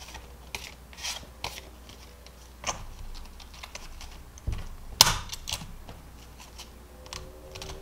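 Translucent hole-punched cash envelopes rustling and clicking as they are handled and fitted onto a zip binder's metal rings, with one sharper click about five seconds in.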